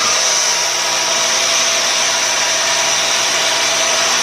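Electric dowel machine (broom-handle lathe) running steadily, with a constant high whine over an even machine noise.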